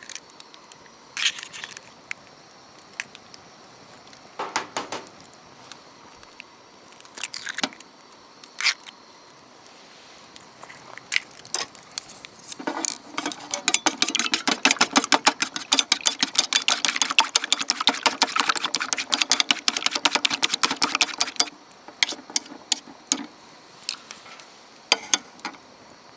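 Scattered knocks and clicks of cooking utensils, then about nine seconds of fast, continuous clacking that stops suddenly.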